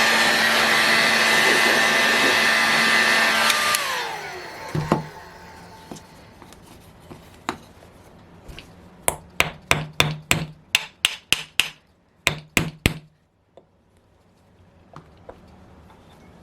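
A heat gun blowing steadily, then switched off about four seconds in, its fan winding down with a falling whine. Then one knock, and a few seconds later a quick run of about a dozen sharp taps, as the hot model engine is tapped to free its stuck rear cover.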